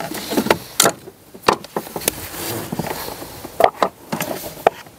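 Battery hold-down bracket being knocked and shifted back into line by hand: a series of sharp knocks and clicks, with a stretch of scraping about two seconds in.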